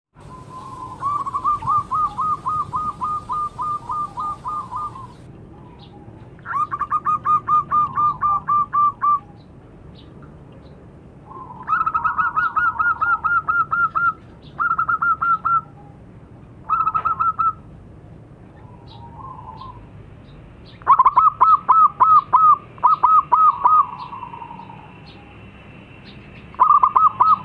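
Zebra dove (perkutut) calling: runs of rapid, rhythmic cooing notes, each run a quick string of short coos lasting about one to four seconds. There are about seven runs, separated by short pauses.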